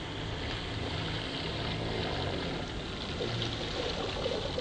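Radio-controlled model tug boat cruising on a pond: a steady wash of water from its hull and wake over a low, even hum.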